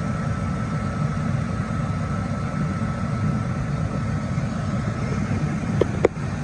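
Ford Triton gas engine in a 2004 F250 idling steadily, with a faint high whine that stops about five seconds in. Two sharp clicks come near the end.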